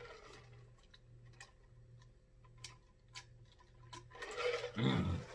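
A person drinking from a mug: quiet mouth clicks and swallows, then a short louder voiced breath, falling in pitch, about four to five seconds in.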